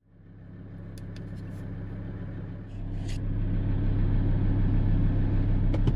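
Car engine idling, heard from inside the cabin as a steady low hum. It fades in at the start and grows louder about three seconds in, with a few light clicks early on.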